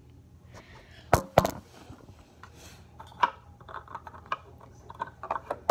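Hard objects being handled: two sharp knocks about a second in, then a run of light clicks and taps.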